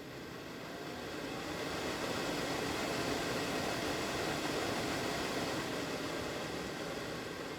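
BMW E9 heater blower fan motor running on a repaired speed-controller resistor, a steady rush of air with a faint hum. It gets louder over the first two seconds or so, then eases off a little near the end.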